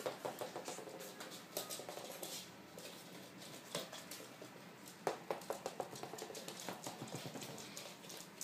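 A puppy's claws pattering and skittering on a hard floor as it chases a ball, with irregular clicks and taps and one sharper knock about five seconds in.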